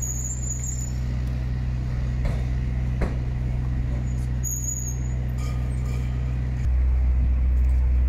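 Steady low engine hum, which steps louder and deeper near the end.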